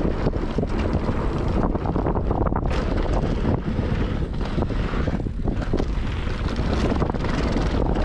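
Wind rushing over the microphone of a mountain bike descending a dirt trail at speed, with the tyres rolling over the ground and many short rattles and knocks from the bike over bumps.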